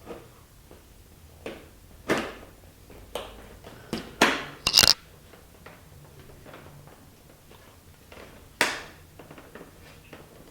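Plastic knocks and scrapes of a Puig motorcycle windscreen being slid into the fairing and shifted into place. A handful of sharp clacks stand out from quieter handling noise, the loudest a pair just under five seconds in.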